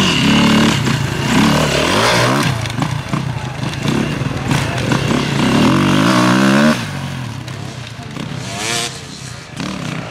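Enduro dirt bikes revving as they ride past on a dirt course, the engine pitch rising and falling with throttle and gear changes. The sound drops abruptly about two-thirds of the way through, leaving a fainter bike whose pitch falls away.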